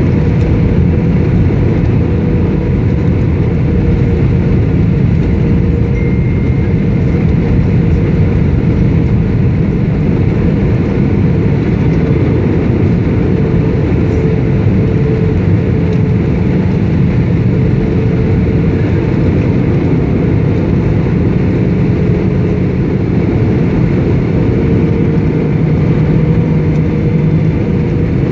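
Airliner engines and airframe giving a loud, steady rumble with a faint constant hum, holding even throughout.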